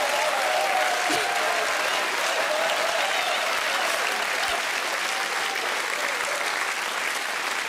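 Theatre audience applauding steadily, with some voices heard over the clapping in the first few seconds.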